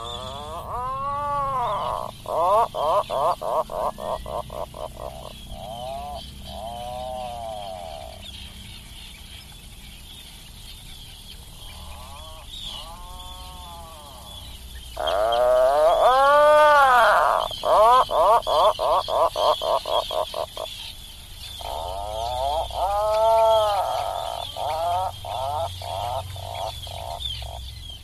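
Atlantic puffin calling in repeated bouts. Each call opens with a drawn-out moan that rises and falls in pitch, then breaks into a fast run of short pulsed grunts that slows toward its end. There are three or four bouts, the loudest in the middle, over a steady background hiss and low rumble.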